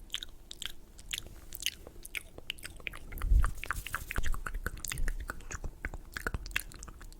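Close-miked ASMR mouth sounds: wet clicks and smacks of lips and tongue, coming in quick, irregular succession. There is a soft low thump about three seconds in.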